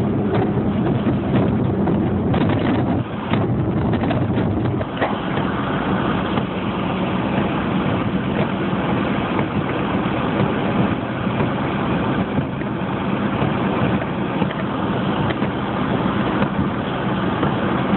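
A vehicle engine running steadily, with a low hum under a constant rush of noise.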